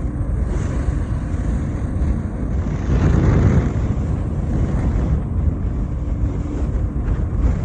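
Strong wind buffeting the microphone over the steady low rumble of a boat underway in heavy seas, swelling briefly about three seconds in.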